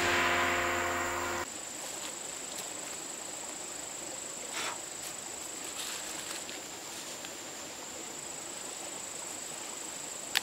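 Background music cuts off about a second and a half in, leaving a steady high-pitched insect drone over quiet forest ambience. Soft, brief rustles of fern fronds being handled come through now and then.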